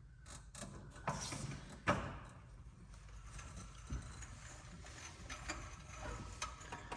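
Warm engine oil draining from a Polaris Sportsman XP1000's drain hole into a pan, a faint steady hiss, with a few light clicks and knocks of handling in the first two seconds.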